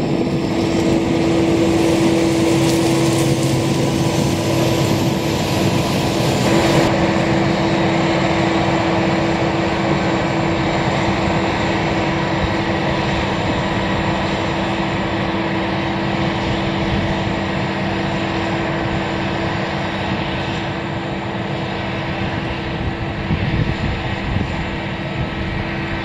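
Fendt 939 Vario tractor's six-cylinder diesel engine running steadily as it hauls a loaded four-axle silage dumper past and away across the field, gradually growing fainter.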